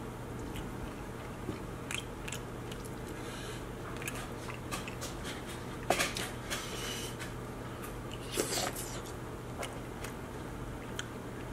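Close-miked eating sounds: a man chewing king crab meat, with wet mouth clicks and scattered crackles from handling the crab shell. There is a sharper click about six seconds in and a brief rustling burst a couple of seconds later, over a faint steady hum.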